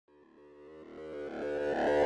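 Synthesizer intro music fading in from silence, a run of quick repeated keyboard notes growing steadily louder.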